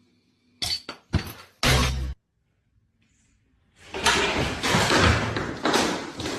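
A few sudden bangs in quick succession, then a longer, louder stretch of noisy clattering that fades near the end.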